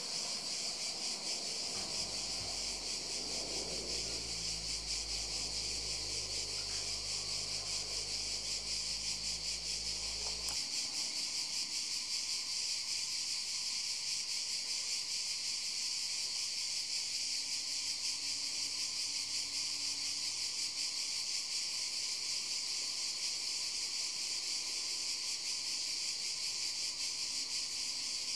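Steady high-pitched insect trilling with a fine, rapid pulse, running on without a break. For the first ten seconds a low hum lies under it, stopping abruptly.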